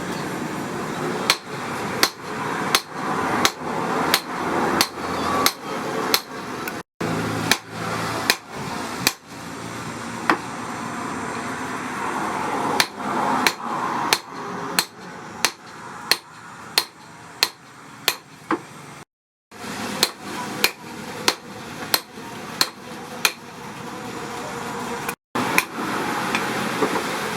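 Hand hammer striking metal in a steady rhythm, about one and a half blows a second, over a steady hissing background. The rhythm breaks off briefly three times.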